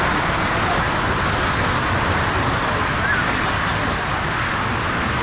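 Steady rushing jet noise from a taxiing Boeing 757's engines, even and unchanging.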